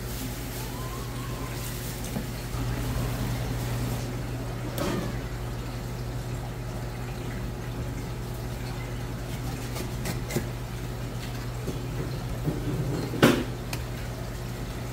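Long knife skinning and trimming a fish fillet on a cutting board: soft scrapes and taps over a steady low hum, with a louder knock or scrape against the board about thirteen seconds in.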